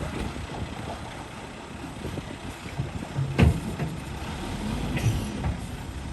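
Heavy diesel earthmoving machinery running with a low rumble. A sharp metallic clank comes about three and a half seconds in, and an engine note rises and holds for about two seconds around it.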